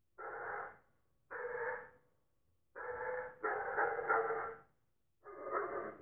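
A dog giving a series of drawn-out barks, five in all, the fourth held for about a second, with short silent gaps between them.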